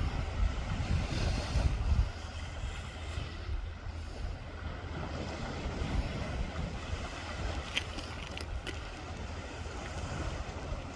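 Wind buffeting the microphone, heaviest in the first two seconds, over a steady wash of sea surf on the shore.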